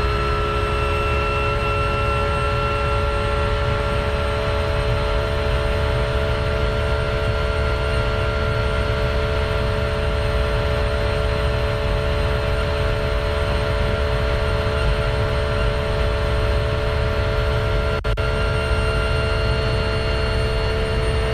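Porsche 911 GT3 R race car's naturally aspirated flat-six heard from inside the cockpit, held flat out at high revs with its pitch climbing very slowly, over a heavy low rumble. A brief dip in level comes near the end.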